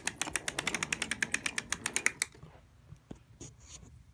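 Toy Thomas engine moving along plastic toy track, giving a rapid, even clicking of about seven clicks a second that stops about two seconds in, leaving a few faint clicks.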